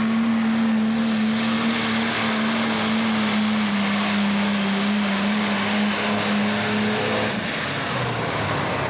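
Pro Stock pulling tractor's turbocharged diesel engine running flat out under the load of the weight sled, a steady loud drone over a wide roar. Its pitch sags a little partway through, and the drone drops away about seven seconds in.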